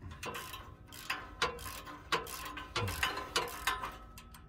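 Hand socket ratchet clicking in short strokes, two or three irregular clicks a second, as it turns a rusted exhaust flange bolt with a bolt-extractor socket.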